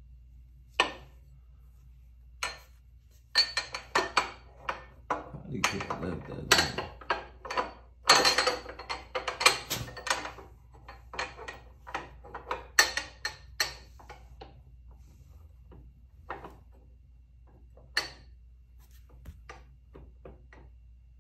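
Irregular clicks, knocks and clatter of hard parts being handled and fitted into the rear frame of a Can-Am Ryker while a backseat bar is mounted, busiest from about three to fourteen seconds in.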